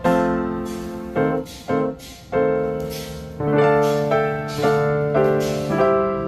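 Background piano music: chords struck one after another, each fading slowly.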